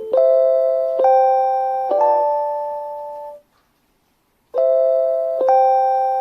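JR Hokkaido station guide chime for blind passengers, a short electronic bell-like melody looping. Three chiming notes about a second apart ring on and fade, then after a pause of about a second the phrase starts again with two more notes.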